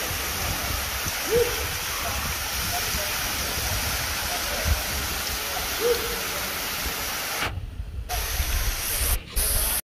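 Steady hiss of a tall, thin waterfall's spray falling onto rock and splashing into a pool. The sound drops out briefly twice near the end.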